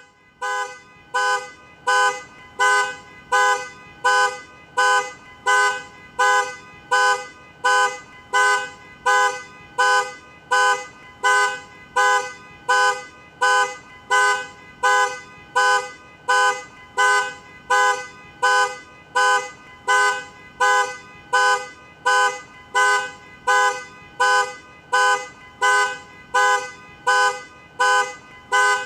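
Car alarm sounding, pulsing the car's horn in short, evenly spaced honks a little more than one a second, without let-up.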